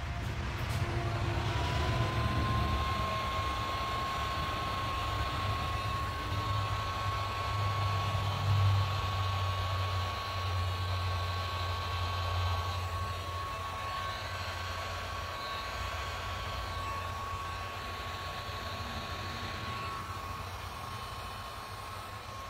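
Electric heat gun running, its fan whine rising for the first second or two as it spins up, then holding one steady pitch over the rush of hot air, as it is played over wet epoxy resin to open up cells and lacing. A low rumble sits underneath, strongest in the middle.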